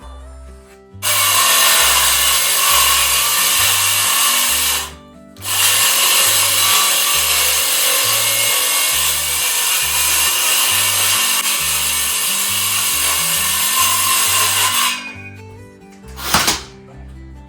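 A power tool running hard in two long runs, the first about four seconds and the second about ten, with a brief break between them. A short sharp noise follows near the end.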